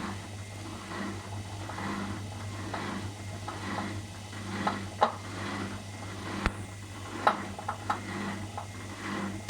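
Car running with a steady low hum and a throb about once a second, with a few sharp knocks standing out: the knock the owner is recording as a fault.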